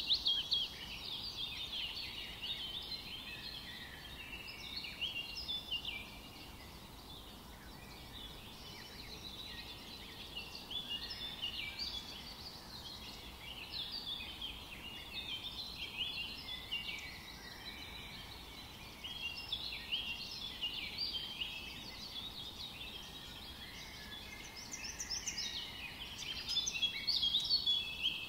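Many small birds chirping in a continuous chorus of short, overlapping high calls, swelling louder near the start and again near the end.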